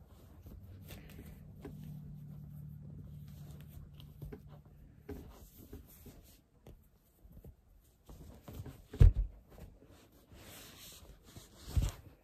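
Cloth rustling and handling noises as a pink knit top is pulled onto a vinyl reborn doll, with small knocks, a low steady hum for a few seconds, and two loud dull thumps, one about nine seconds in and one near the end.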